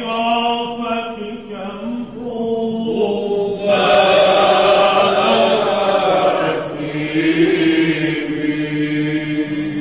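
Byzantine Orthodox chant: a male chanter sings long held and sliding notes over a steady low held drone. The voice grows louder and brighter from about four to six and a half seconds in.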